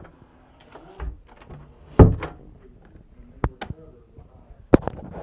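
A door banging shut about two seconds in, with a low thump before it and a few sharp knocks and clicks after.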